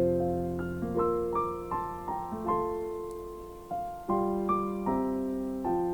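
Soft, slow solo piano music: gentle notes and chords struck one after another and left to ring and fade.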